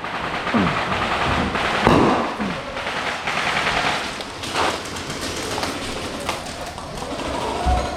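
Airsoft guns firing in an exchange of fire: rapid runs of sharp cracking shots, with a few louder single cracks about half a second and two seconds in.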